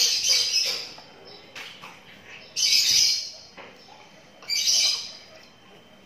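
Twelve-day-old lovebird chick calling with raspy squawks: three calls, about two seconds apart.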